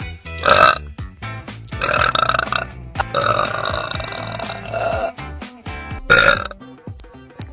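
A girl burping loudly several times, about four burps, the one in the middle long and drawn out, over background music.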